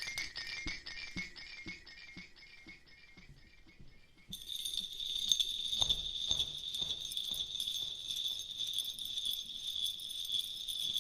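Jingling bells, like a hand rattle of little bells or a cow's bell collar, with a soft regular tapping; the jingle fades away, then about four seconds in a brighter, denser jingling starts abruptly.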